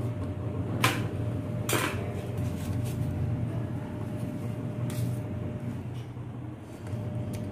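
Kitchen handling sounds: two sharp clicks about a second apart near the start, as the gas stove's knob is turned and the tawa handled, then a few lighter taps as roasted puris are set on a plate, over a steady low hum.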